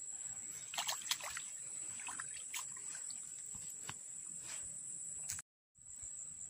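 Steady high-pitched chirring of crickets or similar insects, with scattered faint clicks and rustles. The sound drops out for a moment near the end.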